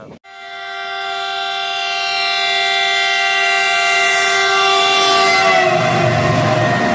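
WDG4G diesel locomotive sounding one long, loud horn blast as it approaches. Near the end the chord drops in pitch as the locomotive passes alongside, and the low rumble of the locomotive going by rises.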